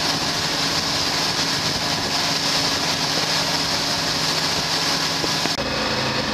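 Boat engines running under way, with wind and rushing water as the boat runs at speed alongside the motor lifeboat. About five and a half seconds in, this cuts abruptly to a steady engine drone inside the motor lifeboat's wheelhouse, with more low rumble and less hiss.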